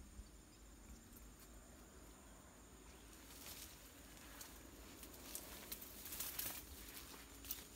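Maize leaves rustling and brushing against the person and phone while walking through a cornfield, with footsteps. It starts faint and turns into a string of short, irregular swishes from about three seconds in.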